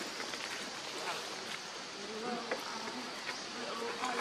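Steady insect buzzing, with a wavering hum drifting in and out and a few faint ticks.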